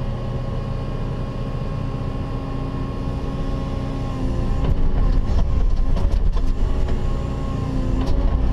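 Cat 316E excavator's diesel engine and hydraulics running steadily, heard from inside the closed cab. It gets a little louder about halfway through as the boom and bucket move, with a few clicks and knocks.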